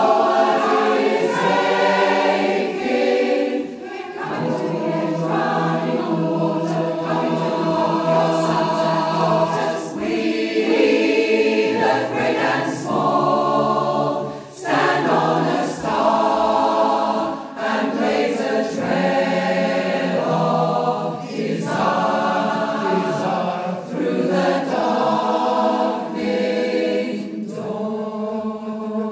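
Choir singing in sustained, changing chords as background music.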